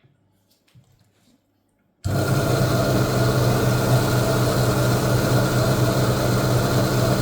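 A few faint clicks, then about two seconds in an electric coral-cutting saw switches on abruptly and runs with a steady motor hum.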